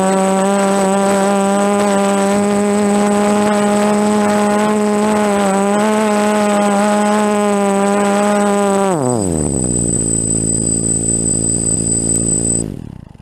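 DJI F330 quadcopter's brushless motors and propellers whining steadily at a constant pitch. About nine seconds in, the whine drops quickly in pitch as the motors spool down, runs on at a low pitch for a few seconds, then cuts off abruptly near the end.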